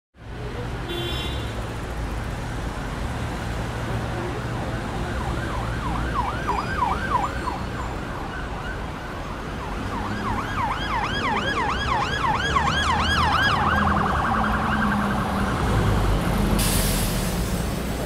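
City street traffic rumbling steadily, with an emergency vehicle's siren yelping in quick rising-and-falling sweeps, about four a second: briefly around six seconds in, then again from about ten seconds in for several seconds, quickening near the end. A short hiss comes near the end.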